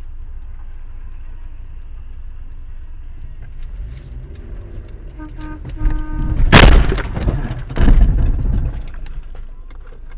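Low rumble of a car driving, heard from inside the cabin through a dashcam. About five seconds in a car horn sounds briefly, then comes the sharp, loud bang of a collision, with a second loud impact about a second later.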